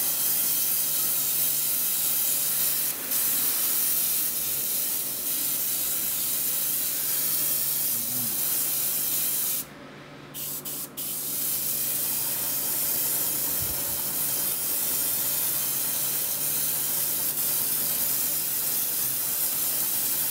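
Airbrush spraying paint: a steady hiss of air and paint that cuts out for about a second around halfway through, then resumes.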